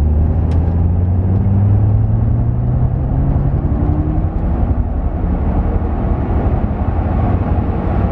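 Audi RS6's twin-turbo V10 accelerating hard under heavy throttle, heard from inside the cabin. The engine note climbs in pitch, dips about halfway through, then carries on pulling.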